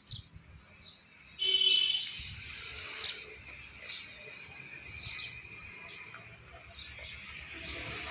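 Birds chirping: short falling chirps every second or so over a steady high background hiss. About a second and a half in, a louder, harsh sound lasts about half a second.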